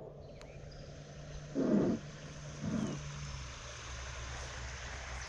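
Faint steady outdoor background on a slow creek, with two short low muffled rumbles, the first about one and a half seconds in and the second a second later.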